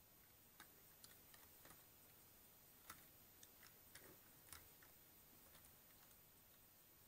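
Faint, scattered clicks of computer keyboard keys being pushed down as a blob of cleaning gel is pressed onto them, against near silence.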